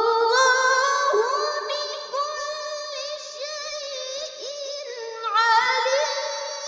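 A solo reciter's voice holding a long, ornamented melodic vowel in Qur'an recitation (tilawah) with a strong vibrato. The pitch bends and turns throughout, and the voice swells louder about five and a half seconds in.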